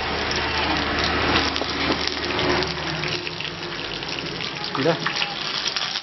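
Tempering of garlic, dried red chillies and curry leaves sizzling in hot oil in a kadai, a steady hiss.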